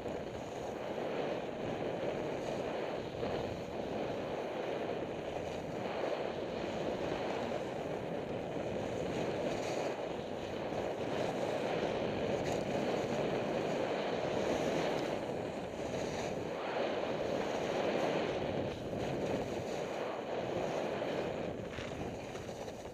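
Wind rushing over the microphone of a camera carried by a skier heading down a groomed piste, mixed with the hiss and scrape of skis on snow, swelling and easing through the turns and dropping as the skier slows near the end.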